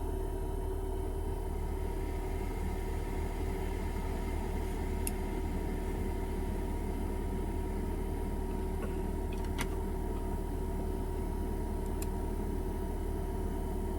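A steady machine hum, heavy and low with a constant whine above it, with a few light clicks.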